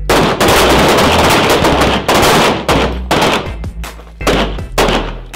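Semi-automatic pistols firing on a shooting line after a fire command. For about two seconds the shots overlap into a dense run, then separate shots follow every quarter to half second, thinning out near the end.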